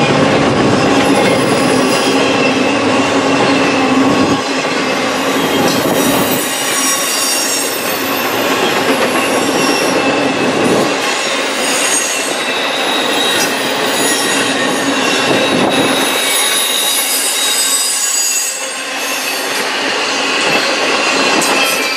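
Double-stack intermodal container well cars rolling past close by, their steel wheels running on the rails with a loud, continuous rolling noise. Thin high-pitched wheel squeal comes and goes over it.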